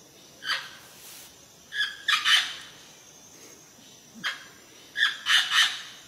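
Amazon parrot calling in loud squawks: a single call about half a second in, a quick run of calls around two seconds, another single call just after four seconds, and a run of three calls near the end.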